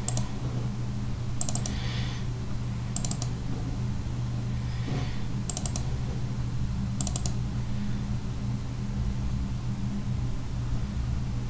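Computer mouse button clicks: five quick double- and triple-clicks spaced about a second and a half apart, stopping about seven seconds in, over a steady low hum.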